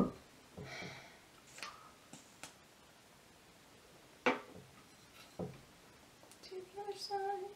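Scattered small clicks and knocks of makeup products being handled, with a sharper click about four seconds in. Near the end comes a brief hum.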